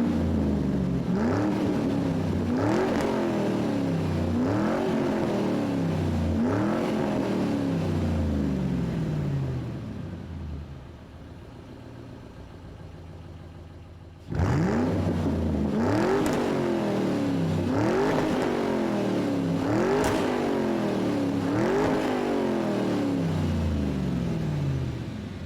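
Engine revved over and over, each rev climbing quickly and falling back more slowly, about one every two seconds. After the first run of about five revs it drops to a quieter idle for a few seconds. It then cuts abruptly back into a second run of revs, which fades out near the end.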